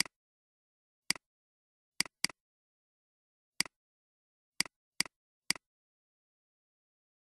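Computer mouse button clicking: eight sharp clicks at uneven intervals, each a press followed at once by a fainter release tick, two of them close together about two seconds in.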